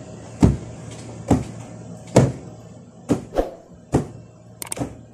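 Sofa cushion being beaten to knock out a year's built-up dust: sharp whacks about once a second, two in quick succession about three seconds in, then a few lighter clicks near the end.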